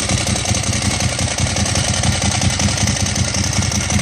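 Ducati 1098S's 90-degree V-twin engine idling, with the rattle of its dry clutch.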